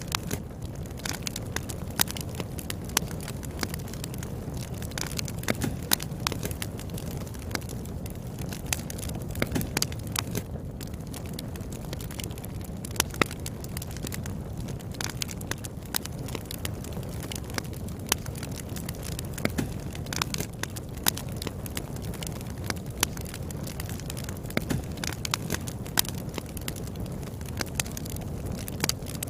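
Wood fire burning with a steady low rumble and frequent sharp, irregular crackles and pops from the burning firewood.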